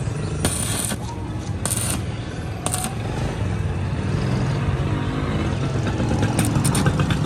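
Steady low vehicle rumble, with several short metallic clanks in the first few seconds and a quick run of clicks near the end, typical of metal parts being worked on a motorcycle.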